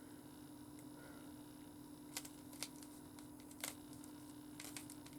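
Plastic Rubik's cube being twisted by hand: a handful of sharp, short clicks spread over the last three seconds, over a steady low hum.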